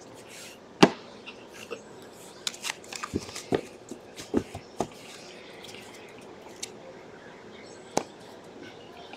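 Trading cards being handled and squared into a stack in the hands: a sharp tap about a second in, a cluster of quick clicks and taps in the middle, and one more tap near the end.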